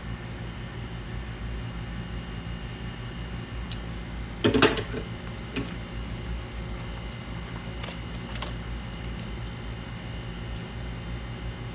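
Steady electrical hum and hiss from bench equipment, with a quick cluster of sharp clicks about four and a half seconds in and a few lighter clicks around eight seconds, as small tools are handled during board repair.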